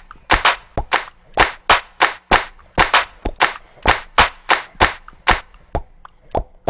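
Hand claps in a steady rhythm, about three or four a second, with no other instruments.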